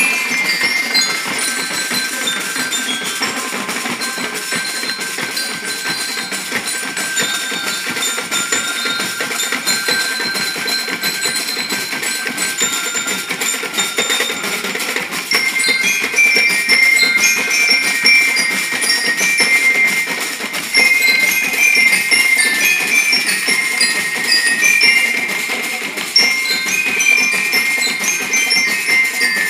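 Marching band playing: snare drums beat a dense, steady rhythm under a high, bell-like melody of short notes. The band grows louder about halfway through.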